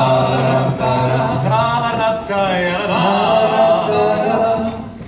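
A group of voices singing together in close harmony without instruments, over a held low bass note; the singing stops just before the end.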